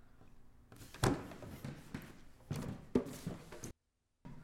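A wooden-and-metal chair being pushed back and handled as someone gets up from a table: a few sharp knocks and scrapes with shuffling steps, and the sound cuts out completely for a moment near the end.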